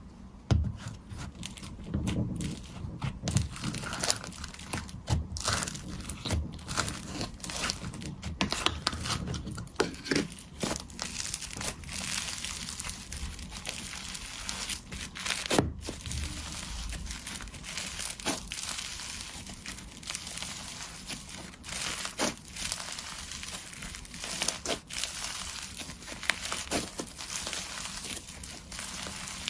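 Slime being squished and pulled by hand, with a dense, irregular crackling of small pops and clicks and a few louder pops.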